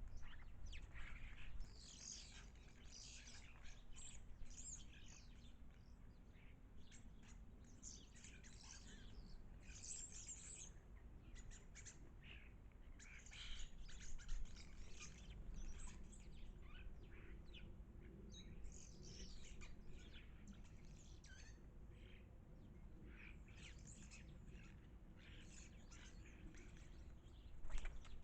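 Small garden birds chirping and tweeting: many short, high calls in scattered clusters, with a steady low rumble of outdoor background underneath.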